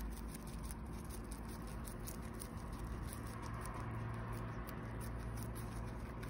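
English Crested guinea pig chewing a sprig of fresh leafy herb, with rapid, steady crunching and nibbling clicks over a low background hum.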